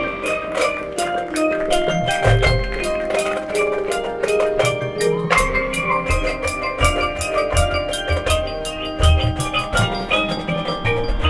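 Marching band playing its field show: a busy passage of rapid mallet-percussion strikes over held pitched chords, with a few heavy low drum hits.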